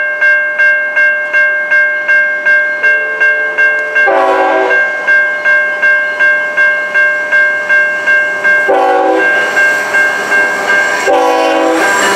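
A level-crossing warning bell ringing about three times a second while a CN freight locomotive's air horn sounds three short blasts: one about four seconds in, one near nine seconds and one near the end.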